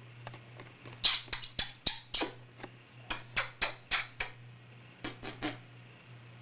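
Quick smacking kisses on a baby's cheek: three rapid runs of four or five kisses each, with short pauses between.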